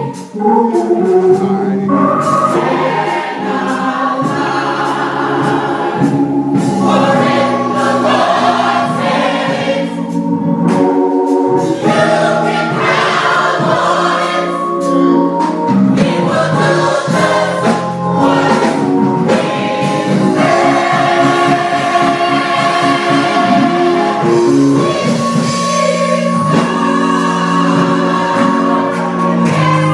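Gospel church choir singing in harmony, holding long notes and chords.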